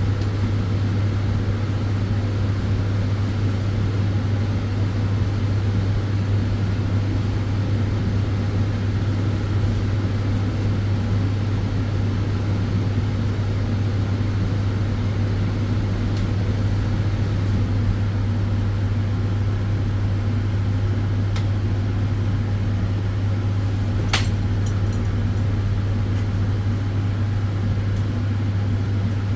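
Tanning bed running: steady fan noise under a strong, constant low hum, with one small click about three-quarters of the way through.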